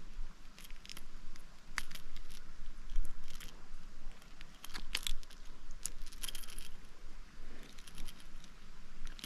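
Irregular small metallic clicks and rattles of forceps and a fishing lure's hooks being worked to unhook a caught fish.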